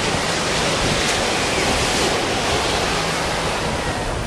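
Ocean surf washing steadily onto the beach, mixed with wind on the microphone.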